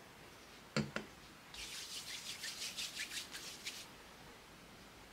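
Two light knocks about a second in, then palms rubbing together in quick, even strokes for about two seconds, spreading a pumped-out hair product between the hands.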